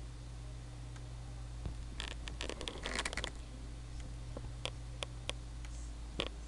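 A cluster of light clicks and rustling about two seconds in, then a few single sharp clicks spaced apart, over a steady low hum.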